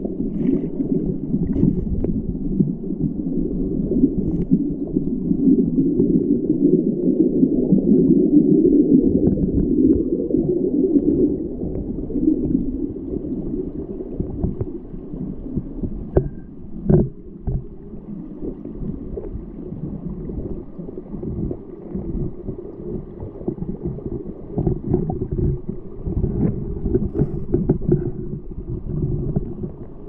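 Stream water flowing over a gravel bed, heard from a camera held underwater: a muffled, low, rumbling gurgle that eases off about a third of the way through. A single sharp knock sounds about seventeen seconds in.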